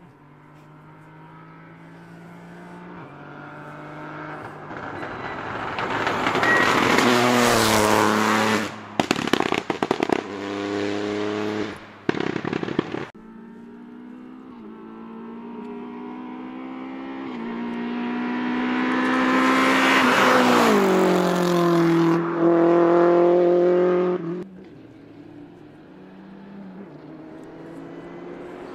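Rally cars going by flat out one after another, each engine note building as it approaches and dropping in pitch as it passes. The first is followed by a run of sharp pops and crackles. The second cuts off suddenly, and a third car is heard coming near the end.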